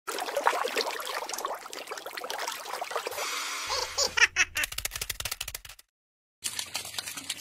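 Rapid dry clicking and crackling, with a run of sharper separate clicks and a brief full break of silence near the end.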